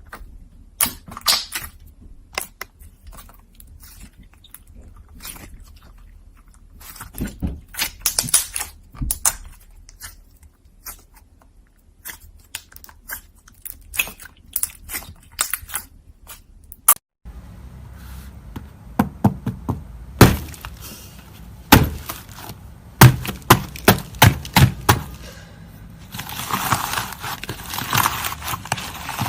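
Slime being poked and squeezed by hand, making irregular sticky clicks and pops, with louder pops in the second half and a dense crackling stretch near the end.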